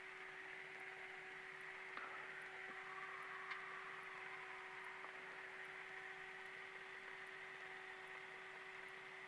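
Faint steady hum with hiss on the Cessna Skyhawk's headset intercom feed, the idling engine and propeller muffled almost away; a faint click about two seconds in.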